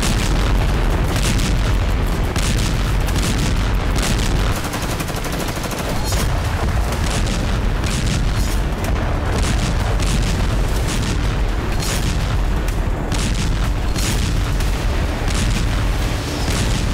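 Explosions and gunfire: a dense, loud, low rumble of booms with many sharp shots and cracks scattered through it.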